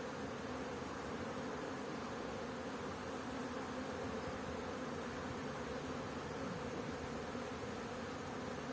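Honeybees buzzing: a steady, even hum of many bees.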